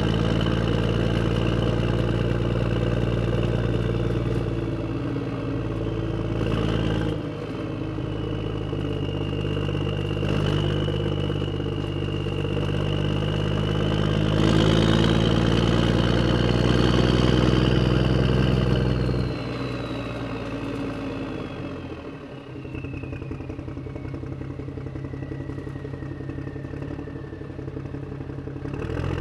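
A heavy vehicle's engine running steadily with a deep, even hum. About two-thirds of the way through the engine note drops and thins, while a high whine slides slowly down in pitch.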